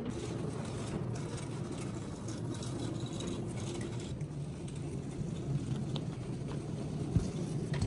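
Steady low rumble with scattered light rattles and clicks, from wheeled furniture rolling across a hard floor.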